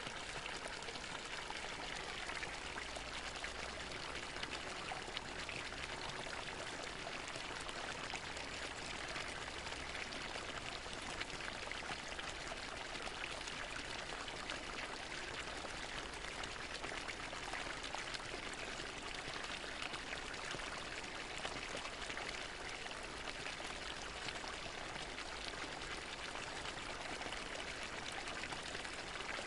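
Fountain water falling and splashing steadily into its basin.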